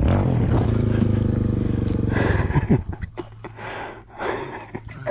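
Dirt bike engine idling steadily, then dropping to a quieter, lower idle about two and a half seconds in. Short breathy puffs, likely the rider breathing hard, come over it twice.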